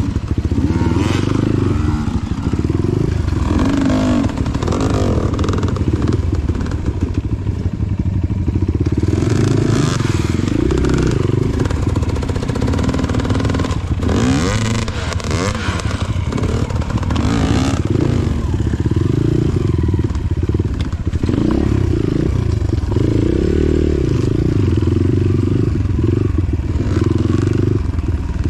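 Dirt bike engine running continuously, its pitch rising and falling as the throttle is worked on and off.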